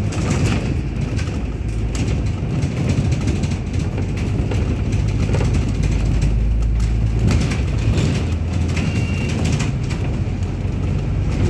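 Steady low rumble of a bus under way, heard from inside the passenger cabin: engine and road noise, with occasional light rattles.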